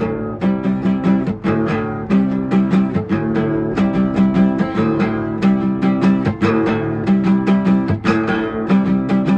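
Acoustic guitar strummed in a steady rhythm, chords ringing under repeated, evenly spaced strokes.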